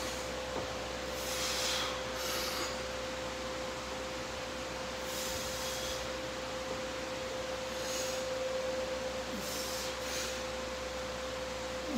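A steady single-pitched tone holds through, over a constant hiss, with several short breathy puffs of air now and then.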